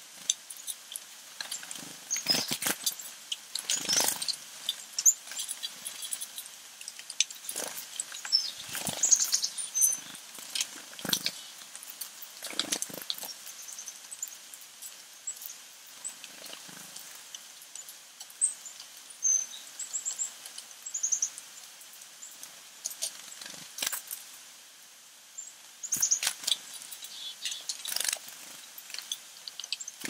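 Backyard songbirds in winter: scattered short high chirps and calls, with irregular knocks and rustles throughout.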